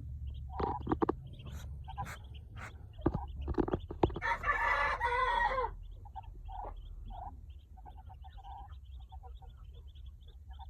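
Chickens calling: many short, repeated high peeps, with one louder, longer call about four seconds in lasting about a second and a half. A few sharp knocks come in the first half, over a low steady hum.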